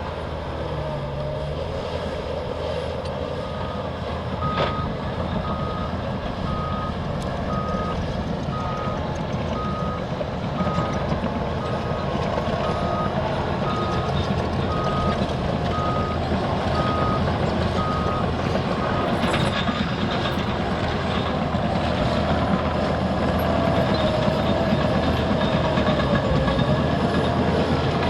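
Diesel engines of Liebherr crawler bulldozers running under load, a steady low drone. A reversing alarm beeps at one pitch, about one and a half beeps a second, from about three seconds in until about eighteen seconds, as a machine backs up.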